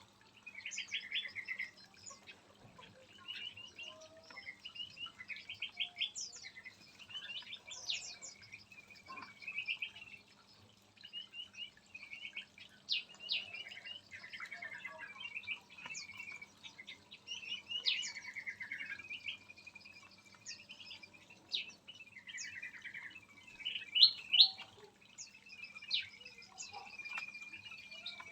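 Several small songbirds chirping and calling over one another: short chirps, whistled notes and quick trilled runs of notes keep coming throughout, with a louder burst of chirps a little before the end.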